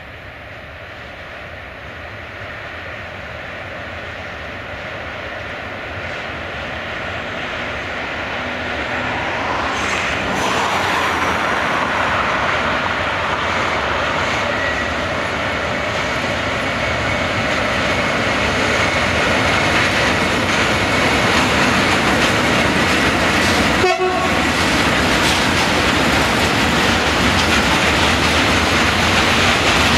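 A freight train hauled by an electric locomotive approaches and passes close by, growing louder over the first ten seconds or so. After that comes the steady rumble and wheel clatter of a long line of tank wagons rolling past.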